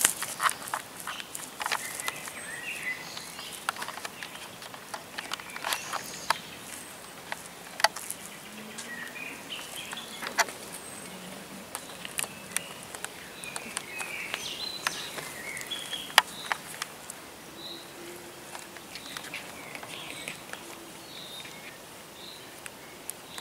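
Outdoor ambience of birds chirping in the trees, with scattered sharp clicks and crunches from someone walking.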